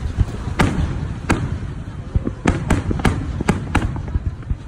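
Aerial firework shells bursting: a run of sharp bangs, several in quick succession after about two seconds, over a continuous low rumble of more distant reports.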